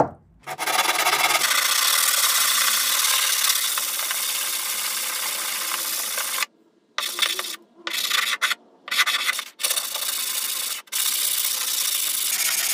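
Sanding: a steady abrasive scratching for about six seconds, then several shorter stretches of the same sound that start and stop abruptly.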